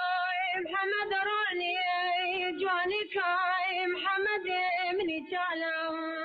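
A woman singing a slow melody on her own, holding long notes with a wavering vibrato and pausing briefly between phrases.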